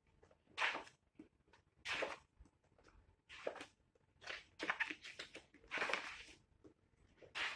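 Large wallpaper sample pages turned by hand, one after another: a papery swish or rustle every second or so, with a couple of quicker ones close together in the middle.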